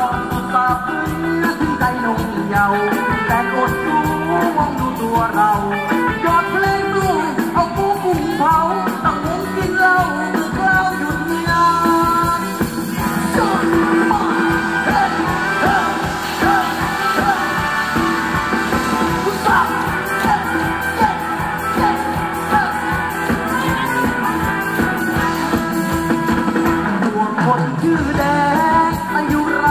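Live band playing upbeat Thai ramwong dance music with a steady beat and a melodic lead line.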